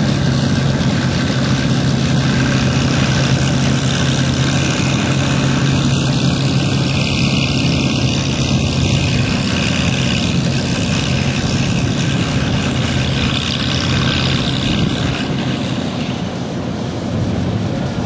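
An engine running steadily at constant speed, a low hum that weakens after about ten seconds, over a steady background rush.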